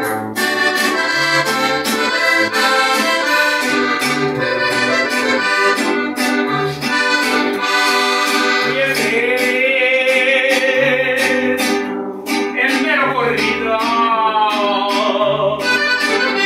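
Accordion and acoustic guitar playing a corrido together in norteño style, the accordion carrying the melody over the guitar's strummed chords and bass notes.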